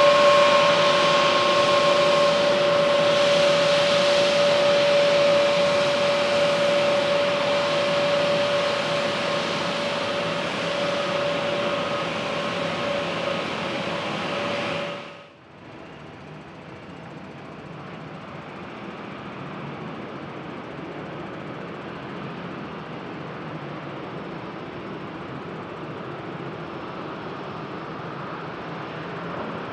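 Jet airliner engines running with a steady whine, slowly fading over about fifteen seconds. About halfway through the sound cuts off abruptly and gives way to quieter, steady jet noise that builds slightly.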